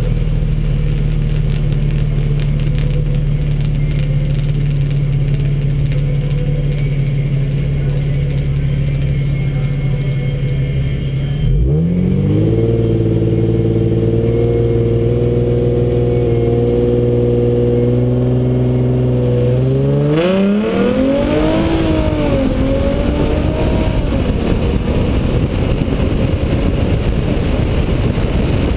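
Nissan 350Z's V6 engine held at steady revs at the drag-strip start line, settling to a lower steady note about a third of the way in. About two-thirds of the way through it revs up hard as the car launches, the pitch rising and dipping through the gears. Near the end a rush of wind noise over the microphone at speed takes over.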